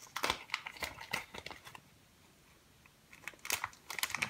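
Clear plastic zip-lock bag crinkling as it is handled: a spell of crackly rustling, a short pause, then more rustling near the end.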